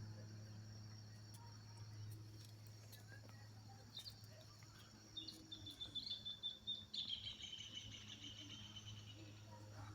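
Insects chirring steadily at the riverbank, with a low steady hum beneath. About halfway through, a bird sings a rapid trill that runs on and falls slightly in pitch before it stops.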